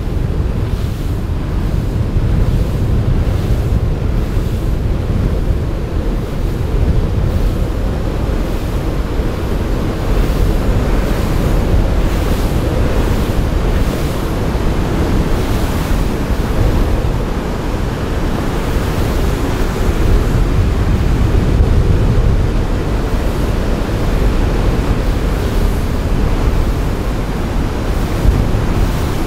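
Steady wind buffeting the microphone, with a continuous wash of waves and water underneath.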